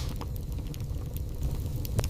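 Wood fire burning in a fireplace: a steady low rumble of flames with scattered sharp crackles and pops. The loudest pop comes right at the start, and another comes at the end.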